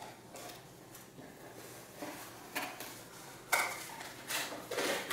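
Cardboard packaging handled and pulled open by hand to free a vacuum accessory: a few short, sharp crackles and scrapes, mostly in the second half.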